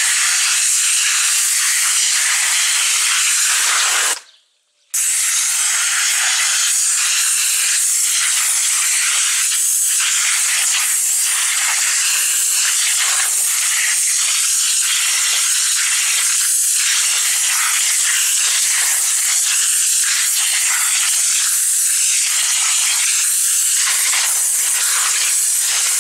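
High-pressure washer jet blasting raw chicken on concrete: a loud, steady hiss of spraying water with spattering as the jet tears into the meat. The sound cuts out briefly about four seconds in, then resumes.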